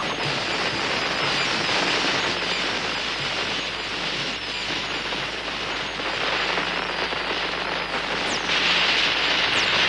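Cartoon sound effect of a steady rushing hiss as the gas inside the tree is set alight, getting louder and brighter about eight and a half seconds in.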